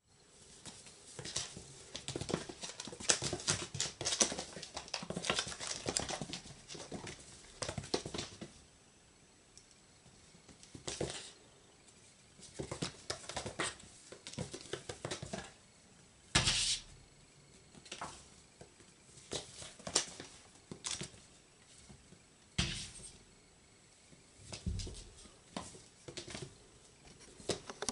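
Kitten's paws and claws tapping, scrabbling and skidding on a wooden parquet floor as it pounces and chases. The sounds come in dense flurries for the first eight seconds or so, then in scattered short bursts.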